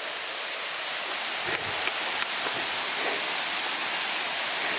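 Steady rush of a waterfall: a continuous hiss of falling water that grows slightly louder.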